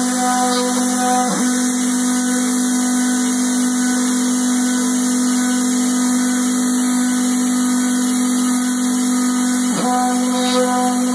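Homemade CNC milling machine running: a steady motor whine, dipping briefly in pitch twice, about a second in and again near the end.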